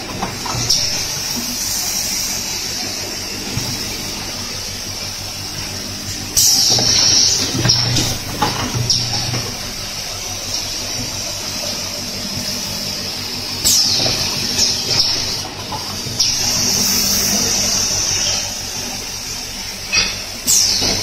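Automatic cap assembly machine running, with a steady mechanical hum under a hiss from its compressed-air system. The hiss swells sharply about every seven seconds, and there are occasional sharp clicks.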